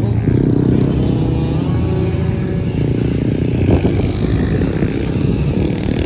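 Dirt bike engines running and revving, pitch rising and falling as several bikes circle the motocross track.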